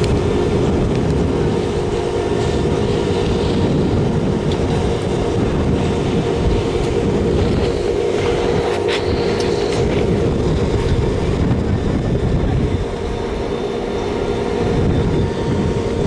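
Detachable chairlift terminal machinery running: a steady mechanical hum over a low rumble, with a short high squeak about nine seconds in.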